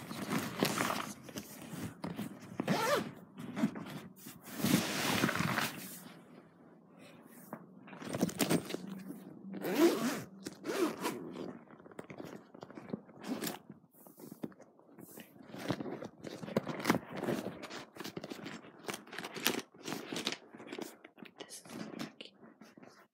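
Pencil case handled close to the microphone: scraping and knocking throughout, with a zip pulled along it about five seconds in.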